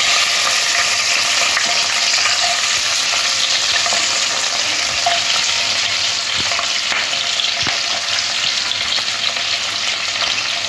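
Chunks of onion and capsicum sizzling steadily in hot oil in a non-stick kadai, with a few faint knocks of pieces and the spoon against the pan.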